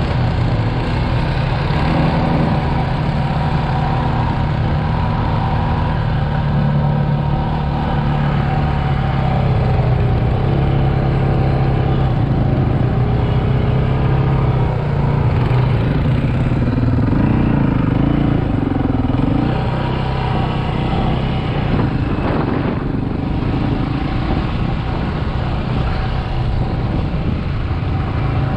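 Quad bike engine running steadily under way over a dirt track, its pitch wavering a little in the middle as the throttle changes.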